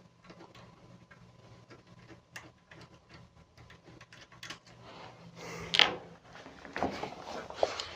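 Small scattered clicks and taps of a screwdriver at work as M3 lockdown screws are taken out of a printer, with a louder scrape about six seconds in and a few knocks near the end.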